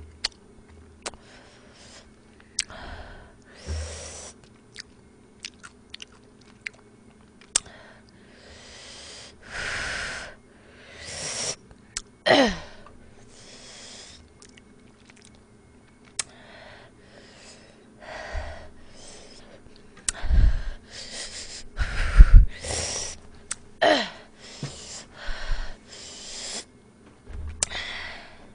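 Close-miked eating of very spicy Buldak stir-fried noodles: chewing, slurps and repeated hissing breaths drawn in against the heat, with light clicks of chopsticks. A couple of loud low thumps come about three-quarters of the way through.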